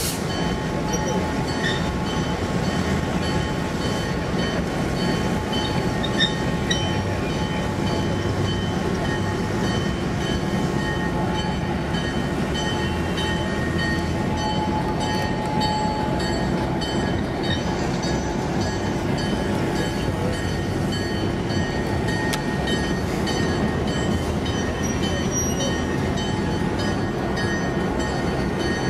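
EMD F7A diesel locomotive's 16-cylinder two-stroke engine running steadily as the locomotive turns on a turntable.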